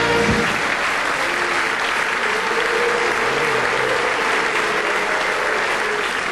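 Large audience applauding steadily. A band's held chord cuts off about half a second in.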